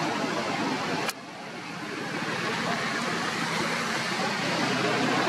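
Steady rushing outdoor background noise, with a sharp click about a second in, after which the noise drops and slowly swells back.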